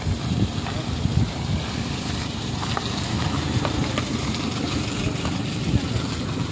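A Nissan minivan driving slowly past close by on a rough road, its engine running low and steady.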